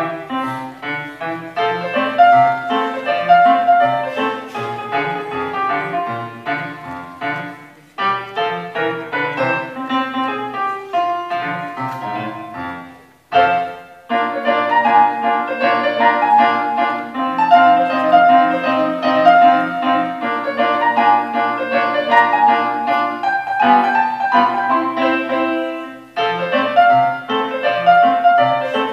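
Solo grand piano playing a classical-style piece as a steady run of notes. The playing breaks off briefly around 8 s, 13 s and 26 s.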